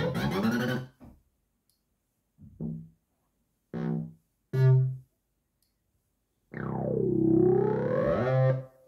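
Korg Kaossilator Pro+ synthesizer playing bass presets in turn, each tried with a few short low notes that stop abruptly, with silence between. Near the end a longer bass note plays, its tone sweeping down and then back up.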